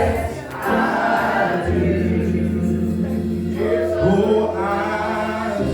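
Gospel singing by a group of voices with musical accompaniment: sung lines that rise and fall over a steady, held low bass note.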